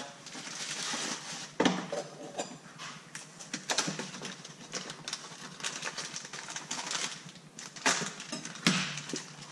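Kitchen handling noises: scattered clicks and light knocks of utensils and containers being moved, with some rustling, and a few sharper taps about two, four and eight seconds in.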